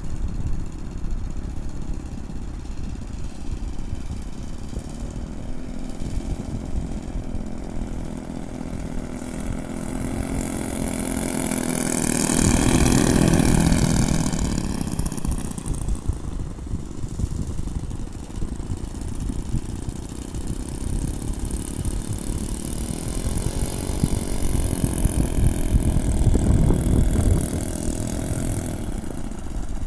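Twin Laser 120 four-stroke glow engines of a large radio-controlled P-38 Lightning model running as it taxis on grass. They grow loudest about twelve to fourteen seconds in as the plane passes close, the pitch dropping as it goes by, and swell again near the end.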